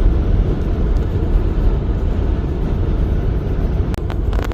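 Steady low road rumble of a moving car, heard from inside the cabin, with a few sharp clicks near the end.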